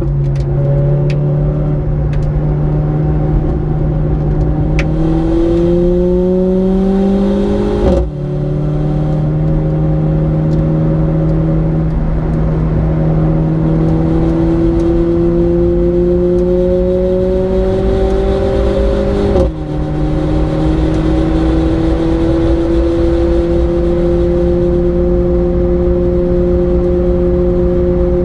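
Mercedes-AMG A 45's turbocharged 2.0-litre four-cylinder accelerating, its pitch climbing slowly, with two quick upshifts of its dual-clutch gearbox, about a third and two thirds of the way through, each a brief dip in sound and a drop in pitch. Steady tyre and wind noise runs beneath it.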